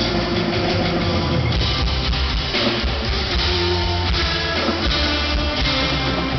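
Live rock band playing an instrumental passage: guitar, bass and drum kit.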